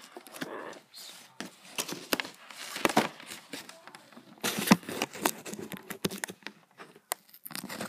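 Fingers picking and scratching at the edge of a cardboard box and its plastic tab, with crinkling and irregular clicks and scrapes; the sharpest scrape comes a little before the middle.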